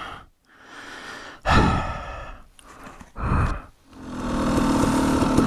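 An exhausted man catching his breath after two hours of racing, his legs cramping: heavy, noisy exhales and sighs. There are two strong breaths about a second and a half and three seconds in, then a long drawn-out sigh that builds over the last second and a half.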